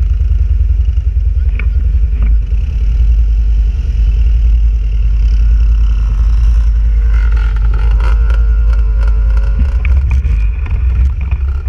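Quad bike engine idling close by, a steady low rumble. From about seven seconds in, other off-road engines approach, rising and falling in pitch as they rev, with some clatter, as a dirt bike pulls up alongside.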